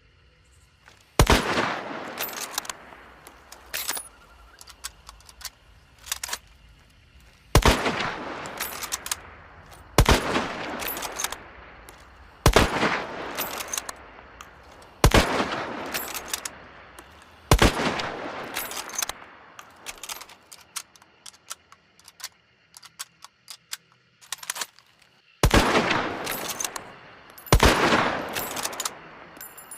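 Mosin-Nagant M1891 bolt-action rifle firing eight single shots at uneven intervals, each followed by a long echoing tail, with smaller metallic clicks between shots as the bolt is worked.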